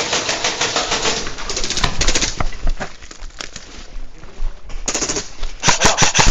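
Airsoft replicas firing on full auto: a long rapid burst at the start, scattered single shots, and another rapid burst near the end.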